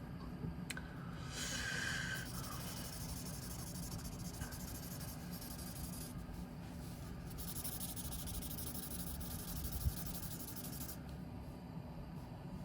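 Drawing on paper: a drawing tool scraping and rubbing across the sheet in stretches of shading, briefly early on and longest and loudest about seven to eleven seconds in.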